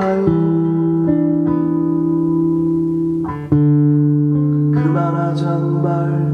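Acoustic guitars playing an instrumental passage of a slow ballad without vocals. Sustained strummed chords ring out, with a new chord struck just after the start and another about three and a half seconds in.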